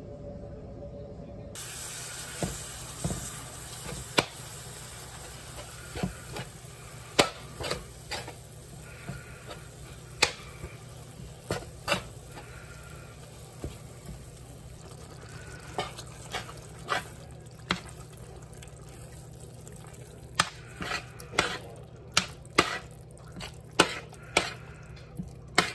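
Ground beef sizzling in a skillet, starting about a second and a half in, while a metal slotted spoon stirs it. The spoon clinks and scrapes sharply against the pan many times.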